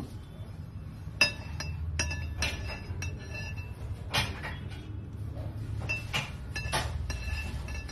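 Metal icing spatula clinking against metal as a cake is frosted: a string of irregular sharp clinks, each with a brief ring, over a steady low hum.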